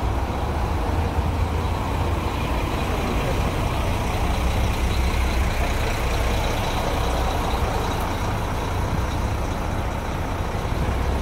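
Diesel engine of a tour coach running steadily with a low rumble, with cars passing on the road.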